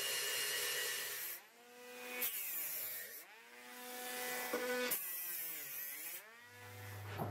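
Angle grinder grinding a steel bar clamped in a vise. About a second in it stops, and a small cordless grinder is run in three short bursts against the steel, its pitch rising as it spins up and falling as it slows.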